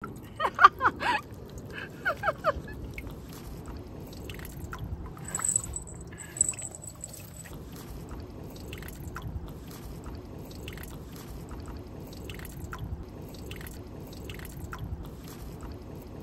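Asian small-clawed otter lapping water at a drain grate: a run of small wet licking clicks. A few short, high-pitched calls come in the first couple of seconds and are the loudest sounds.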